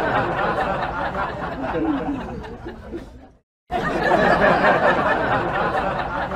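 Crowd laughter, a dense mass of many voices laughing. It cuts out completely for a moment about three and a half seconds in, then starts again.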